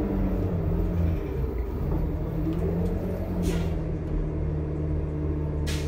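2007 New Flyer C40LFR bus's Cummins C-Gas Plus natural-gas inline-six with Allison B400R6 transmission running, heard from the rear of the passenger cabin, its pitch shifting a little. Two short hisses come about three and a half seconds in and at the very end.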